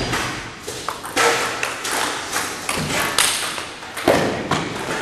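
Table tennis ball clicking off rackets and the table in a rally, a quick irregular run of sharp knocks, the loudest about four seconds in. Each hit echoes in a large gym hall.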